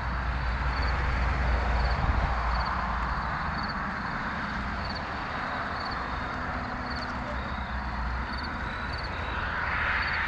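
Wind noise on a head-mounted action camera's microphone while riding, over a steady rolling hiss, with a faint high chirp repeating about twice a second.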